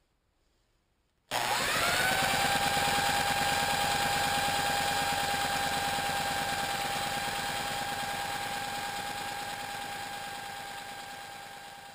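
A power drill spinning a GX200-clone engine and its 3D-printed Roots supercharger over, starting suddenly about a second in: a whine that climbs quickly and then holds steady over a fast pulsing, gradually dying away near the end. The engine turns but does not fire, because not enough fuel is getting through the stock carburetor, which the builder assumes is too small.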